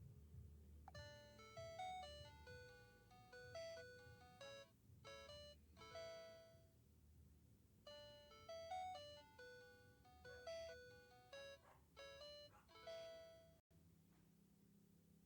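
PalmOne Treo 600 phone playing a faint polyphonic ringtone melody of short, plucky notes: the same short tune plays twice, then cuts off abruptly near the end.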